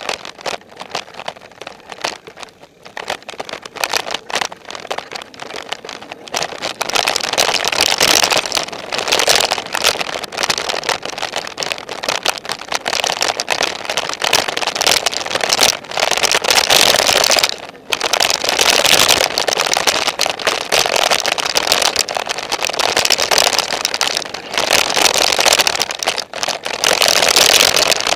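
Wind rushing over a helmet-mounted action camera on a mountain-bike descent, mixed with dense rattling and clattering of the bike over rough, rocky trail. The noise gets much louder about seven seconds in and stays loud, with a few brief dips.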